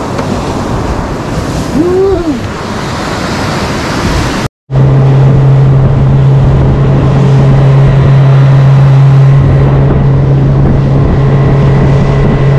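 Wind buffeting the microphone over the rush of surf. After a brief dropout about four and a half seconds in, a Suzuki outboard motor runs at a steady speed, its even low tone the loudest sound.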